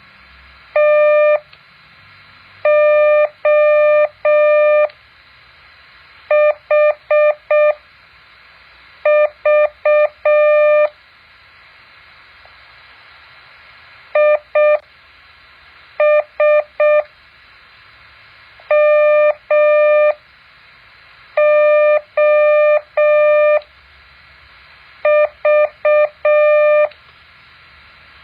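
Morse code practice tones: a single steady beep keyed on and off into dots and dashes, sent slowly as about nine separate characters with long pauses between them.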